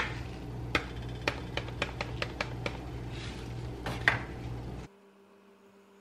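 Kitchen handling sounds as a paper seasoning packet is shaken and tapped over a plate of fish fillets: a run of light clicks and taps over a low hum, with a louder clink about four seconds in. About five seconds in it cuts off abruptly to a faint steady electrical hum.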